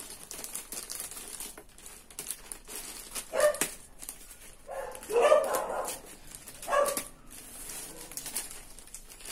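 Plastic mailer bag crinkling as scissors cut it open, with a dog barking three times over it, the middle bark about a second long.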